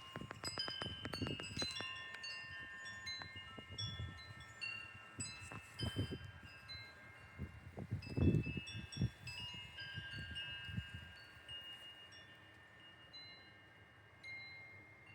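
Wind chimes ringing in the wind: tones of several pitches struck and left to ring, clustered in quick runs, growing sparser toward the end. Low gusts of wind rumble now and then, the strongest a little past the middle.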